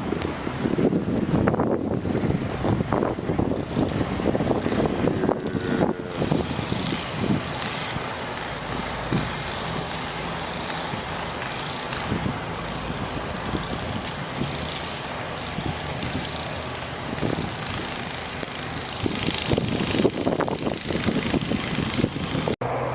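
City street noise: road traffic passing, with wind noise on the microphone, cut off abruptly just before the end.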